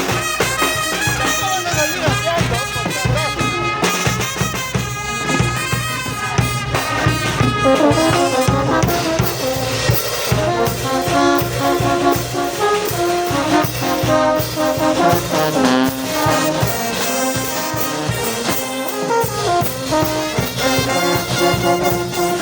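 Brass band of trumpets and trombones playing a melody together over a steady low beat.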